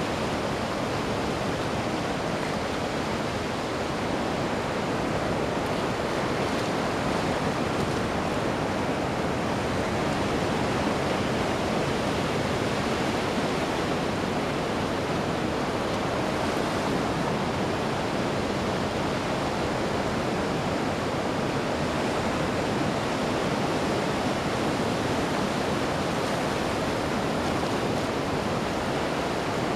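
Ocean waves washing onto a beach: a steady, unbroken rush of surf with only slight swells in level.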